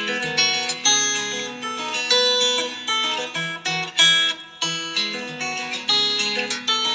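Xiaomi 12X ringtone: an acoustic-guitar-style melody of plucked and strummed notes, several to a second.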